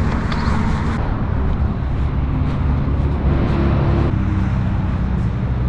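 A motor vehicle's engine running at a steady low rumble, with road-traffic noise around it.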